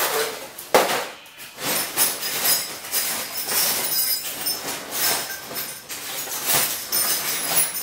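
Continuous rattling and clinking of a steel cabinet drawer and the items in it being handled, with a sharp knock just under a second in.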